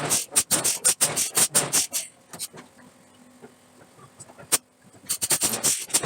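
Forging hammer striking a steel billet in rapid blows, about six a second, stopping after two seconds. A pause with a faint steady hum and two single strikes follows, then the fast blows start again about five seconds in.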